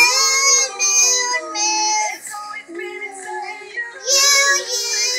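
A young girl singing a pop melody in a child's voice, in phrases of held notes, louder again about four seconds in.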